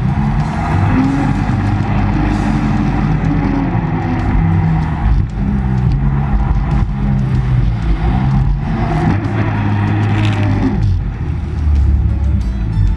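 A motor engine running loudly, with music playing over it.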